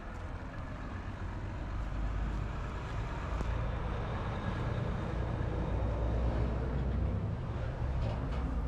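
Steady low rumble of a motor vehicle running nearby, growing louder over the first few seconds. A couple of sharp clicks near the end come from a metal door handle being grasped.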